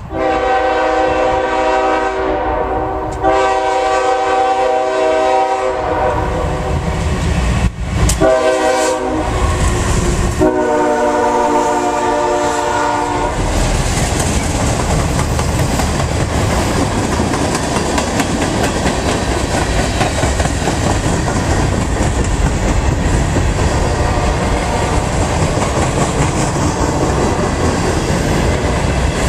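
Freight diesel locomotive's multi-tone air horn sounding four blasts, long, long, short, long: the standard signal for a grade crossing. About halfway through, the locomotive and a string of freight cars pass close by, wheels rumbling and clattering over the rails without a break.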